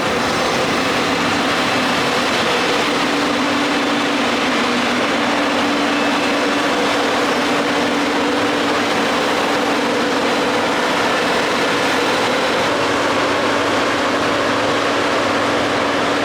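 New Holland combine harvester running steadily while harvesting oats: an even mechanical din with a constant hum that does not change.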